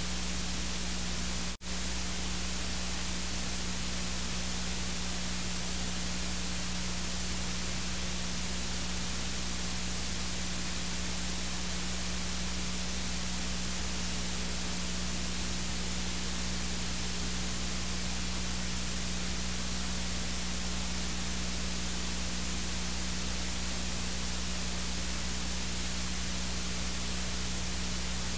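Steady hiss and static with a low steady hum: the noise floor of a transfer with no recorded sound. It drops out for an instant about a second and a half in.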